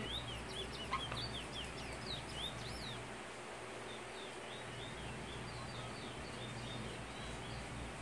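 Caged bullfinch chirping: quick strings of short high notes sliding up and down, busy at first, pausing, then softer again. A steady low hum runs underneath.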